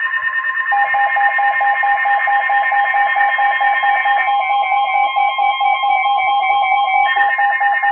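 Emergency Alert System alert tones, several layered at once: a steady tone with fast warbling tones above it, and a second pulsing tone that joins about a second in. Part of the warble drops out about four seconds in and comes back near the end. The tones signal an incoming weather warning.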